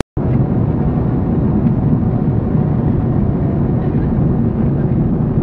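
Steady drone of an airliner's engines and rushing airflow heard inside the cabin in flight, deep and even.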